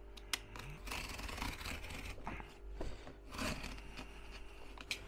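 Cardboard being cut by hand: a run of short, irregular scraping cuts.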